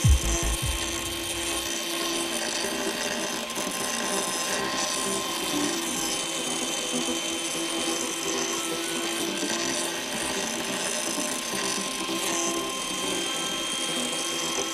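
Angle grinder with a grinding wheel running against the steel edge of a lawn mower blade: a steady motor whine over an even grinding hiss as the edge is ground.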